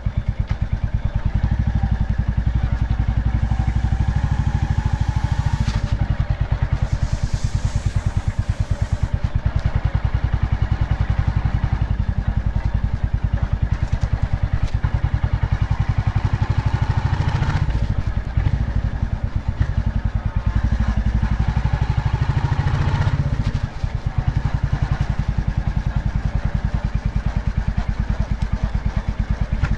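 Royal Enfield Bullet's single-cylinder engine running under way, a steady, fast, even beat. It eases briefly twice in the second half.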